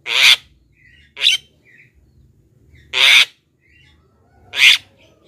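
Javan myna (jalak kebo) giving four loud, harsh, rasping calls about every one and a half seconds, with soft short chirps in between.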